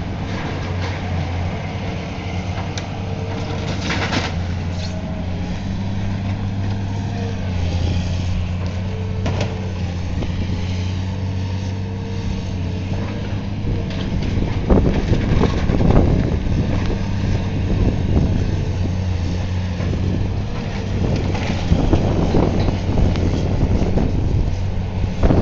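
Heavy demolition machine's engine running steadily, with several irregular crunching crashes of building debris being torn down, the loudest about two thirds of the way through.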